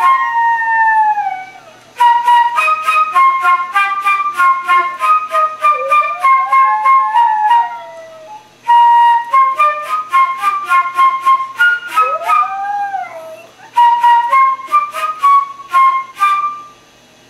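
A flute playing phrases of quick short notes, with a small chihuahua–rat terrier mix dog howling along three times, each howl sliding up and then down in pitch.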